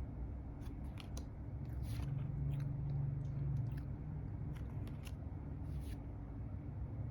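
A tarot card deck and its box being handled: scattered small clicks and light scrapes over a steady low hum that swells briefly in the middle.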